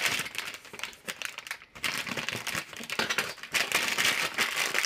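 Plastic chocolate-chip bag crinkling as it is handled and tipped, in a dense run with a brief pause a little under two seconds in.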